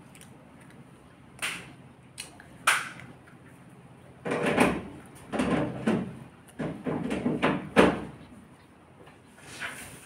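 Household knocks and bumps: two sharp knocks, then a busier run of louder thuds and clatter through the middle, and a faint one near the end.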